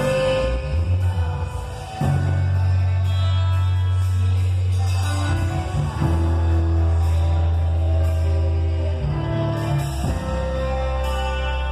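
A band playing a song with singing, over long held bass notes that change every few seconds.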